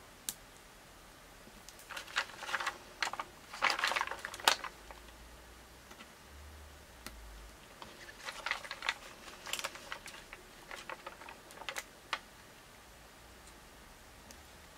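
Crinkles and light clicks from a clear plastic sticker sheet being handled, with fingers pressing small embellishments onto a paper scrapbook page. The sounds come in two bursts of quick clicks, one about two seconds in and another about eight seconds in.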